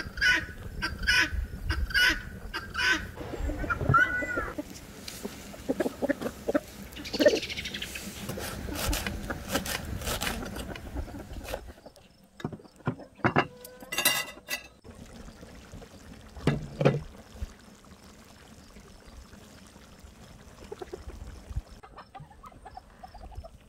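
Chickens clucking near a wood fire. About halfway through, a clay plate is set down on a wooden table with a ringing clatter, followed by a single knock.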